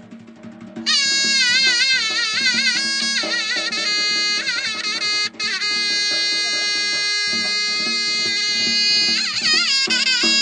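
Instrumental folk-style music: a reedy wind instrument plays a wavering, ornamented melody over a steady low drone and drum beats. The music drops out briefly at the start, then returns, and a long held note sits in the middle.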